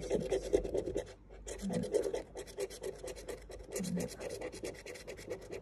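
The edge of a plastic card scraping the scratch-off coating from a paper lottery ticket in quick back-and-forth strokes, several a second, with a brief pause a little after a second in.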